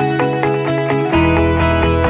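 Background music with guitar; a bass line and a steady beat with high ticks come in about a second in.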